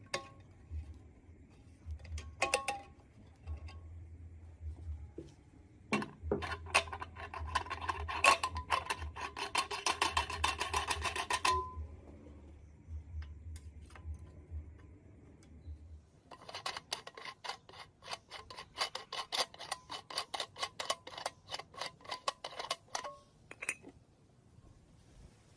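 Rapid metallic ticking in two runs of several seconds each, with a few single sharp clicks between them and a low hum under the first half.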